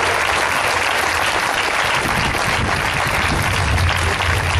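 A crowd applauding steadily, many hands clapping together.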